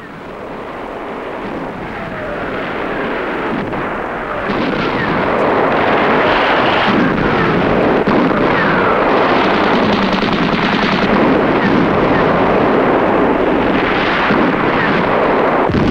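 Battle sound track: a dense, continuous din of gunfire and shell explosions that swells over the first few seconds, then holds steady.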